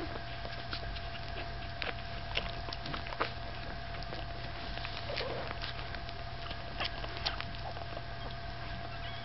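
Newborn Staffordshire Bull Terrier puppies nursing: scattered soft clicks and smacks of suckling and shuffling, irregular, over a steady faint hum.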